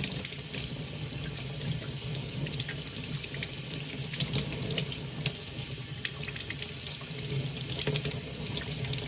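Kitchen tap running steadily into a sink while a peeled daikon is rinsed under it, with light knocks and splashes as it is handled.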